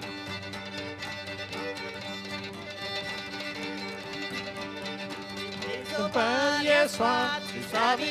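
Cajun band playing live, with fiddles over steady low held chords. About six seconds in, a louder melody line with a wavering pitch comes in.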